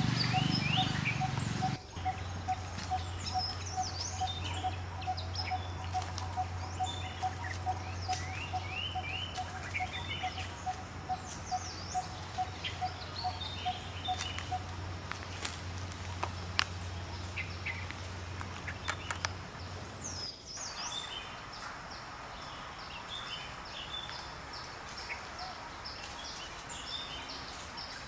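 Wild birds chirping and calling, many short high notes scattered throughout, in outdoor ambience. A steady repeated call of about two or three notes a second runs through the first half, and a low steady hum stops about two-thirds of the way in.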